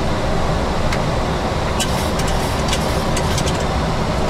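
Steady cockpit noise of a Boeing 737 in the climb: an even rush of airflow and engine sound, with a few short clicks through it.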